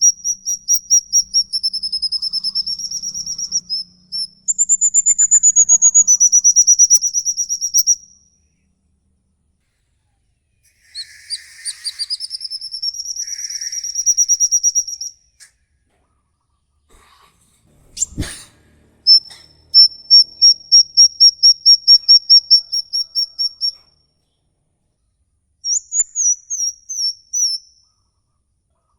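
Small songbird singing long, rapid, high-pitched giggling trills ('ngikik'), each phrase lasting a few seconds, repeated after short pauses. A single sharp click about 18 seconds in.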